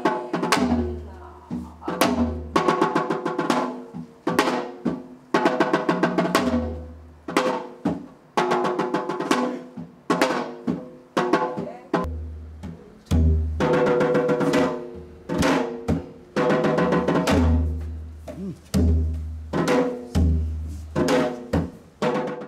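Korean traditional drum music: drums struck in a steady rhythmic pattern, each stroke ringing with a pitched tone, with deep low booms in several stretches.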